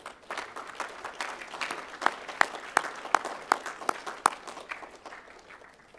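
Audience applauding, with sharp individual claps standing out, dying away over the last couple of seconds.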